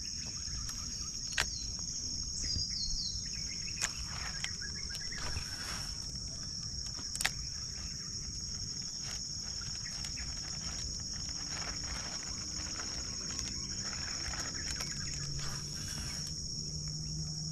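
Steady high-pitched insect chorus, crickets or cicadas, over a low outdoor rumble, with a few sharp clicks.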